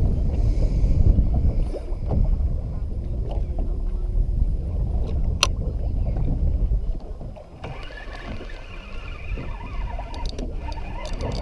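Wind rumbling on the microphone and water washing around a small boat at sea. About seven seconds in the rumble drops and water splashing comes forward, where the fishing line meets the surface, with a few sharp clicks near the end.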